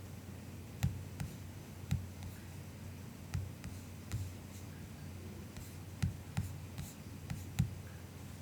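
Soft, sparse clicks of a MacBook's keys, about eleven single keystrokes at an irregular, unhurried pace rather than a run of fast typing.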